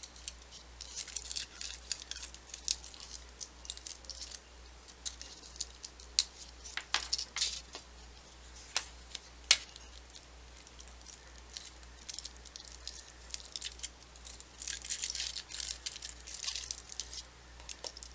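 Scattered light clicks and taps of small watercolor paint pans being handled and set into a metal tin, in clusters, with one sharper click about halfway through.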